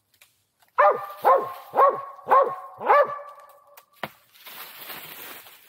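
Young mountain cur barking treed at the base of a tree: five loud, evenly spaced barks about half a second apart, the sign of a squirrel treed above it.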